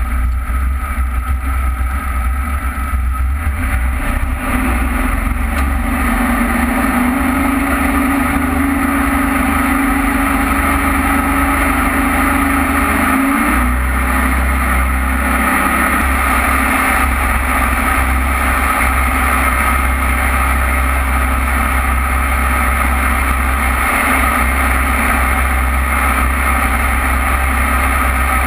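Jet boat engine running under way, with water rushing past the hull. The engine note climbs slowly for several seconds, then drops off suddenly about halfway through.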